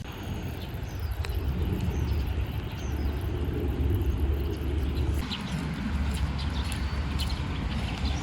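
Steady low rumble with faint bird chirps now and then.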